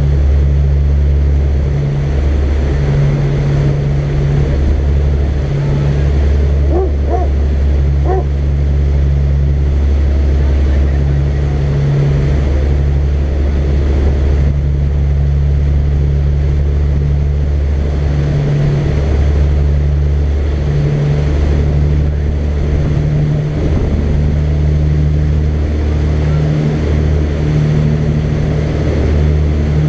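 Sportfishing charter boat's engine droning steadily under way at speed, its low note dipping briefly every few seconds, over the rush of the churning wake.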